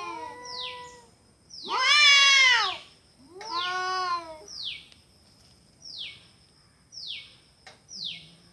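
Cats yowling in a fight: long drawn-out wails that rise and fall in pitch, the loudest about two seconds in and another about three and a half seconds in. After that only short high falling chirps come, about once a second.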